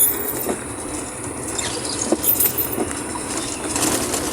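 Vehicle travelling over a rain-soaked, muddy dirt road, a steady rumble with scattered knocks and rattles.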